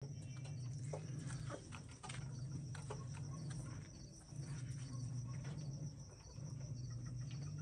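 Crickets trilling steadily with a high, continuous note over a low hum that breaks off briefly about every two seconds, with scattered light taps as a Silkie chicken pecks at a hanging metal feeder.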